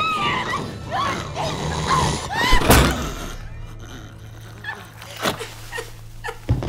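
A close-quarters struggle: short strained cries and gasps, a heavy thud about two and a half seconds in, then quieter scuffling.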